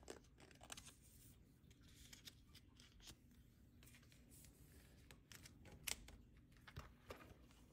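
Faint crinkling and rustling of thin clear plastic as a photocard is slid into a card sleeve and then pushed into a binder page pocket, with scattered soft clicks and one sharper click about six seconds in.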